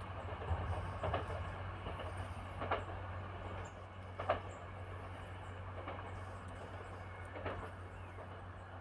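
Two coupled SNCF XGC (X 76500) diesel multiple units approaching at speed from a distance, a low steady rumble with a few faint sharp clicks.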